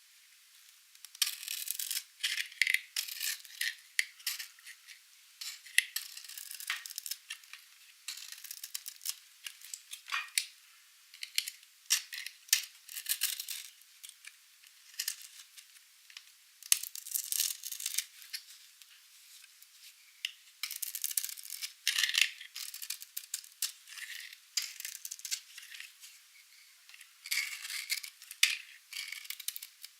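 A knife cutting into dry, painted soap: crisp crackling and crunching as the blade goes through, in bursts of a second or few with short pauses between cuts.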